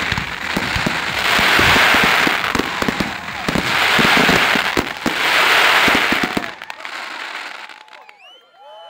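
Firework display finale: a rapid volley of aerial shell bursts, with three long crackling swells over the bangs. The bursts stop about six and a half seconds in, and whoops from the crowd start near the end.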